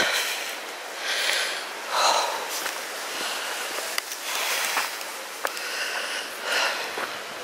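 A person breathing hard and sniffing, a noisy breath in or out every second or so.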